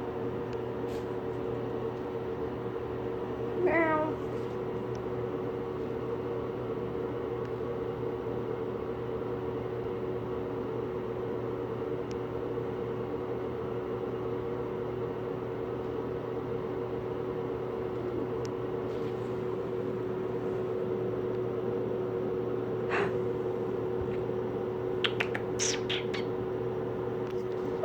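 A kitten gives one short, wavering meow about four seconds in, over a steady mechanical hum. A few sharp clicks come near the end.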